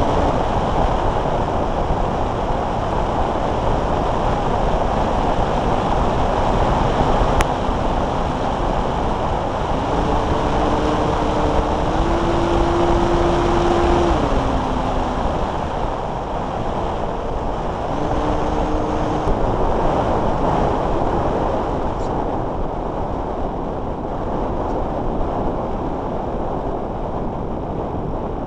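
Steady, loud rush of air over an onboard key-chain camera on a Multiplex Blizzard RC hotliner in flight. A few short steady tones come and go partway through.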